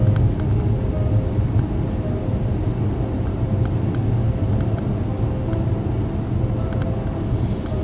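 Steady low road rumble inside a car cruising at highway speed: engine and tyre noise heard from the cabin.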